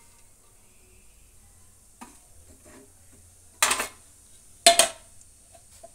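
A metal spoon clinking against a metal cooking pot while oil is spooned in for tempering: a light tap about two seconds in, then two sharp, ringing clinks about a second apart.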